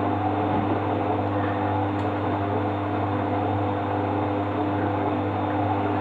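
Beko WMA5100 washing machine running with a steady motor hum that holds a constant pitch, with a faint tick about two seconds in.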